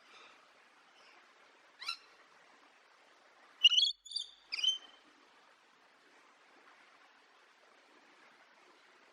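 Parrot calling: one short call about two seconds in, then a quick run of three louder calls about a second and a half later, over a faint steady hiss.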